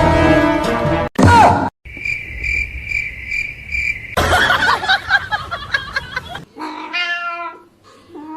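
A run of separate sounds: a steady pitched call, a short loud cry sliding in pitch, a steady beeping about twice a second, a noisy stretch, then a house cat meowing near the end.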